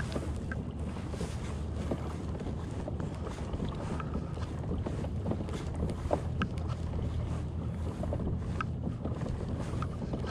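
Wind buffeting the microphone over water moving against the hull of a Hobie Pro Angler 12 kayak under way, with scattered light clicks.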